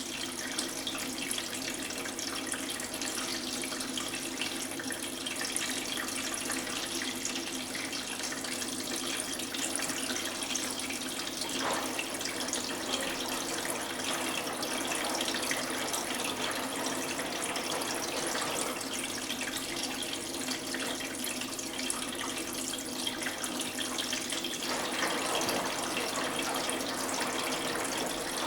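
Valberg WF1014BAID washing machine filling: water running steadily into and through the detergent/softener drawer as the inlet valves let it in, with a low steady hum under it. The flow changes sound about twelve seconds in and again near the end, as the water shifts between dispenser compartments.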